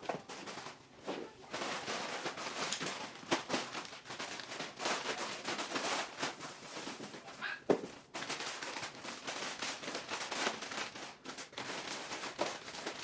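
Rustling of plastic packaging with light clicks and knocks of small items being handled and sorted, in irregular bursts with a few sharper knocks.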